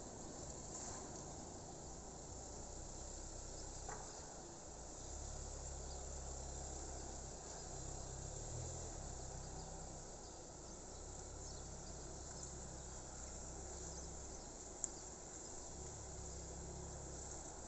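Insects chirring steadily in a high, continuous trill over a low rumble, with one sharp click near the end.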